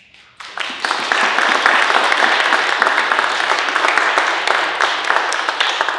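Audience applauding: many hands clapping together, swelling within the first second and then holding steady.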